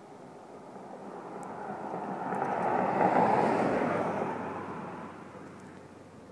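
A car driving past: road noise that swells to a peak about three seconds in, then fades away.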